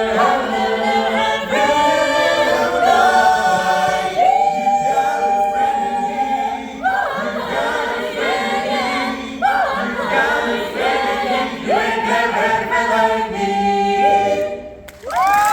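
Mixed a cappella vocal ensemble singing in close harmony, moving through sustained chords; the voices drop out briefly near the end, then come back in on a strong final held note.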